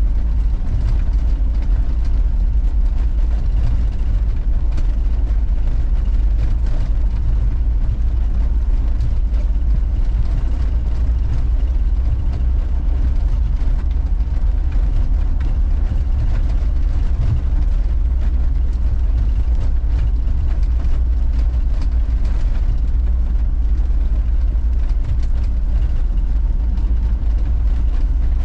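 Troller 4x4 driving slowly on a rural road: a steady low engine and road rumble with no change in pace.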